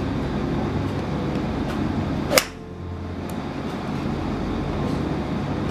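A golf club strikes a ball once, a single sharp crack about two seconds in, over a steady background hum.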